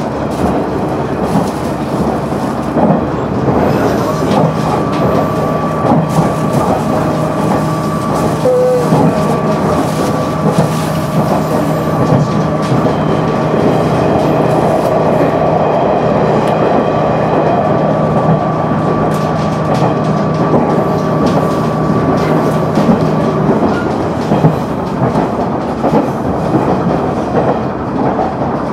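KiHa 100 diesel railcar running along the line, heard from inside the passenger cabin: a steady rumble with wheels clicking over the rail joints. A steady droning tone sets in a few seconds in and drops away about five seconds before the end.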